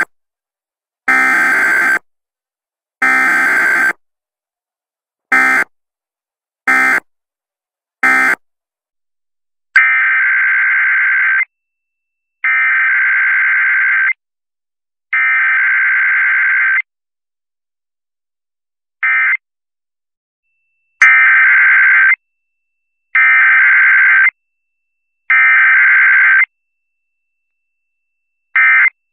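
Emergency Alert System digital data bursts (SAME header and end-of-message codes) for a required weekly test: harsh, buzzy data screeches about a second long in groups of three, a second apart, alternating with short blips of the same sound. Several such sets follow one another.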